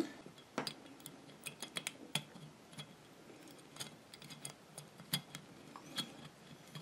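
Faint, irregular metallic clicks and taps as a washer and nut are fitted by hand onto a light-mount bolt.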